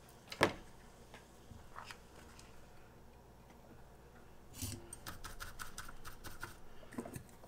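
A sharp knock about half a second in, then, from about four and a half seconds in, a two-second run of quick scratchy clicks as a soldering iron tip is jabbed and wiped in a brass-wool tip cleaner, ending in a light thump.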